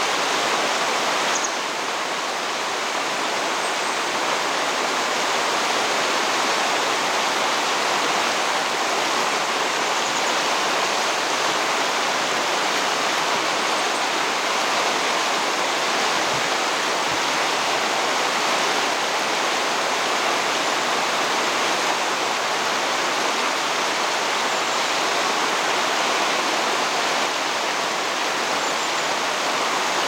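Fast mountain stream rushing steadily, a continuous even sound of running water.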